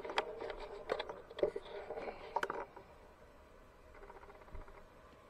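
Handling noise: a quick run of light clicks and knocks for the first few seconds, settling to quiet room tone about three seconds in.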